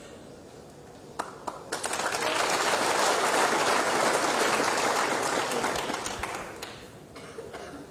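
Snooker crowd applauding. The applause swells about two seconds in and dies away near the end, with a single sharp click just before it starts.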